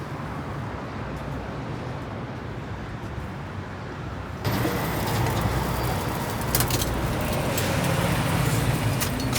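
Street traffic noise with vehicle engines running. About four and a half seconds in it jumps abruptly to louder noise with more hiss and a few sharp clicks.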